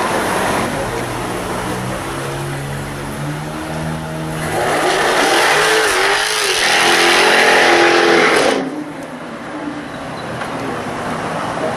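Jaguar F-Type R's supercharged V8 accelerating hard, its note climbing, then a loud rush of engine noise from about four seconds in that cuts off abruptly about four seconds later.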